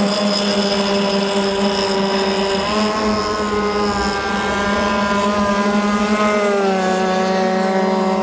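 CMB 26cc two-stroke petrol engine with CMB header and exhaust, driving a Pacer 70 RC racing boat at speed. It runs steadily, its pitch shifting up and down a few times as the boat laps.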